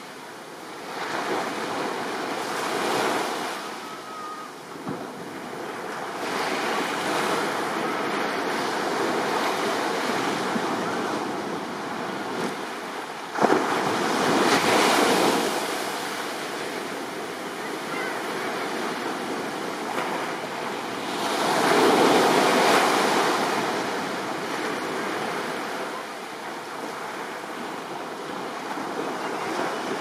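Small waves washing up and breaking on a sandy beach, the surf swelling and easing every few seconds. There is a sudden splash a little before halfway, and the surf is loudest just after it and again about three quarters of the way through.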